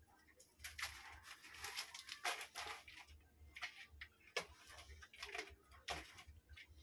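Kitten's claws scratching and scrabbling on a cardboard shoebox as it moves in it and climbs out: irregular rustling scrapes with a few sharp taps.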